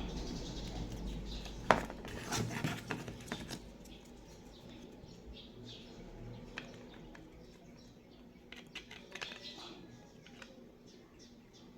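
Handling noise of small plastic parts: a sharp click, then a run of light clicks and taps, and a few more scattered clicks near the end, as the broken pieces of an interior car door handle cover are fitted back together.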